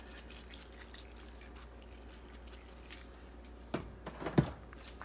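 A few sharp clicks and knocks of kitchenware close together, about four seconds in, one louder than the rest, as grated Parmesan is added to the pot; before them, only faint kitchen background.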